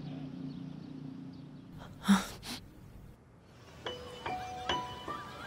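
Dramatic background score: a steady low drone, then a sudden loud burst of noise about two seconds in, then spaced bell-like mallet-percussion notes from about four seconds.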